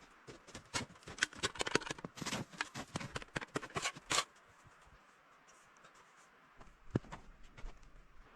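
A quick run of small clicks and rustles, like hands handling something, for about four seconds. Then it goes quieter, with a single knock near the end.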